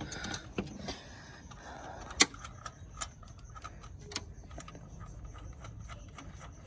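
Scattered light metallic clicks and clinks of a harmonic balancer installer tool being handled and its nut threaded, with one sharper click about two seconds in.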